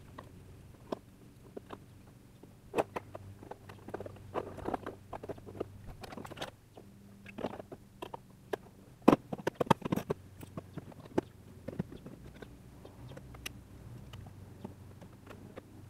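Hard plastic sprayer parts and packaging being handled and set down: scattered clicks, knocks and rustles, with a busy cluster of knocks about nine seconds in.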